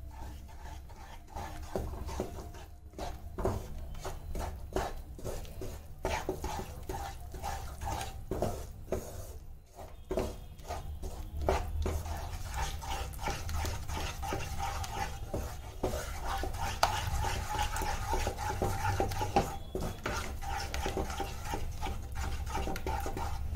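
Wooden spatula stirring and scraping besan through melted ghee in a nonstick kadai, in quick irregular strokes that come thicker in the second half. A low steady hum runs underneath.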